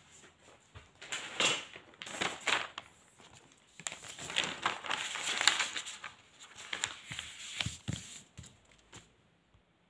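Sheets of paper rustling and crinkling as they are handled and smoothed flat by hand on a table, in irregular stretches with a few sharper ticks near the end.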